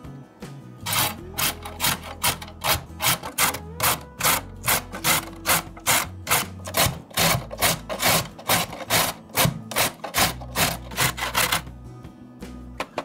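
A carrot being grated by hand on a stainless steel box grater, in a steady rhythm of about two to three grating strokes a second. The strokes start about a second in and stop shortly before the end.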